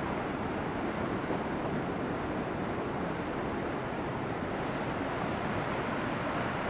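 Waterfall with water rushing in a steady, even stream.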